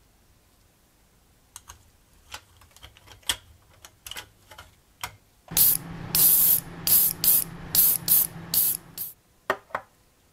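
A run of small irregular clicks and taps, then about seven short, loud hissing spray bursts over a steady low hum, then two more clicks.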